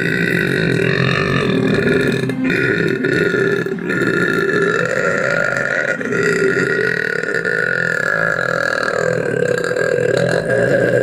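One very long, loud burp that goes on for about eleven seconds, with short breaks about two and a half and four seconds in before it carries on.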